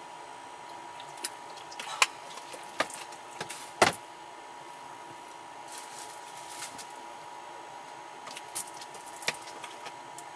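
Scattered clicks and knocks of small objects being handled, the loudest a little before four seconds in, over a faint steady high-pitched hum.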